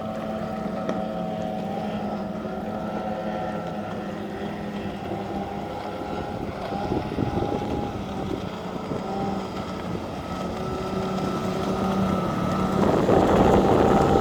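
Engines of several small racing motorboats running at speed, their tones overlapping and drifting in pitch, growing louder near the end as a boat comes close.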